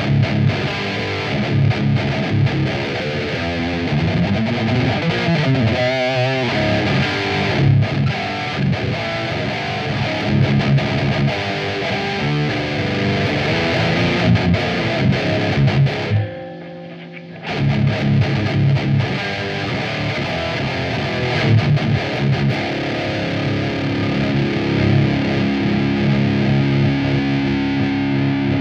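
Heavily distorted Jackson electric guitar playing riffs through a Black Cat Amps Djenttonic drive pedal and a tube amp. A note with wide, wavering vibrato around six seconds in, and the playing breaks off briefly about sixteen seconds in.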